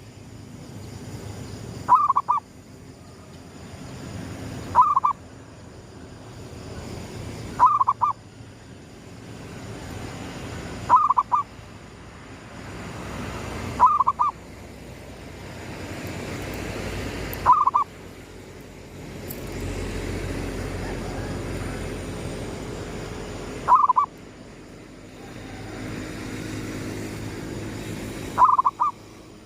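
Zebra dove (perkutut) cooing: a short coo of a few quick notes about every three seconds, eight in all, over a low background rumble that swells around the middle.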